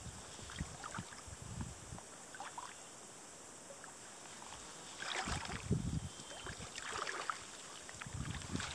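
Faint, irregular water sloshing and splashing with low thumps, while a large hooked fish is being played on a fly rod.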